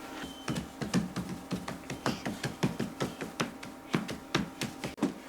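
A run of light, irregular taps and knocks, about three a second.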